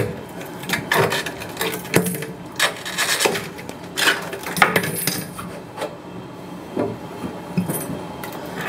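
Irregular clicks, knocks and scrapes of hand tools worked against an aquarium's glass and frame during a repair.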